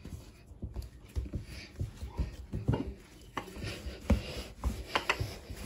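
Wooden rolling pin rolling out pizza dough on a countertop, with hands pressing the dough: a run of irregular soft knocks and thumps as the pin and dough meet the counter.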